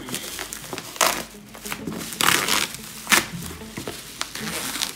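Bubble wrap being slit with a kitchen knife and torn open by hand: irregular crinkling and tearing, with sharper crackles about a second in, past two seconds and just after three seconds.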